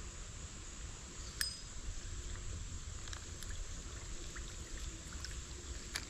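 Shallow creek water trickling over rocks as a steady hiss, with a few sharp clicks, the loudest about a second and a half in.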